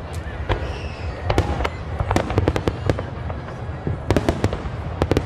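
Aerial fireworks display: rapid, irregular sharp bangs of bursting shells over a steady low rumble.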